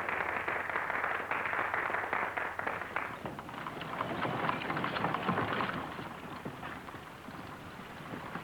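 Horses galloping: a dense, rapid clatter of hoofbeats, strongest in the first few seconds and easing off in the later part.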